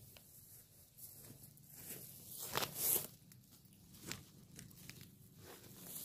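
Close rustling and scraping of a hand handling a shoulder bag and its strap in the grass beside the microphone. The sounds come as scattered short rustles and clicks, loudest about two and a half to three seconds in.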